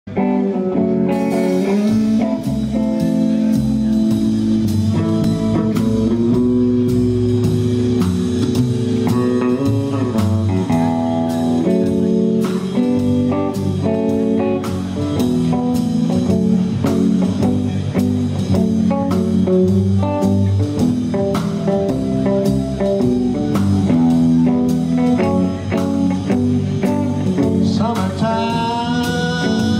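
Background band music with guitar and a steady drum beat.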